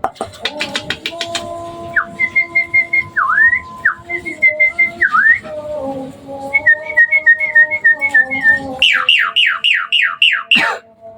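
Hybrid Asian pied starling (jalak suren) singing in full voice: a quick run of clicks, then strings of short repeated whistled notes broken by swooping whistles, and near the end a fast series of falling whistles.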